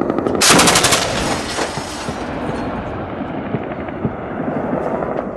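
Heavy anti-aircraft machine gun firing a short rapid burst about half a second in, followed by a long rolling echo.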